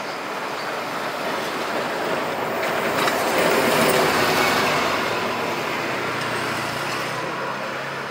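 City bus driving past close by, its noise swelling to a peak about four seconds in and then fading away.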